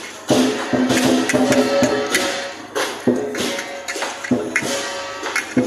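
Lion dance percussion band playing: a fast pattern of drum beats with clashing cymbals and steady ringing metal tones.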